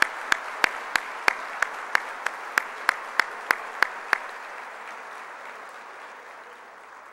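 An auditorium audience applauding, with one person's claps close to the microphone standing out at about three a second. The close claps stop about four seconds in, and the rest of the applause dies away near the end.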